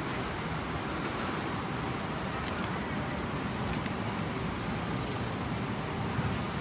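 Steady, even hum of city street traffic.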